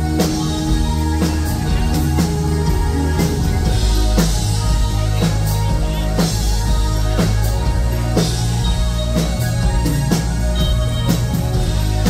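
Live new-wave rock band playing: synthesizer keyboard, electric guitar, bass and drum kit, driven by a steady, even drum beat.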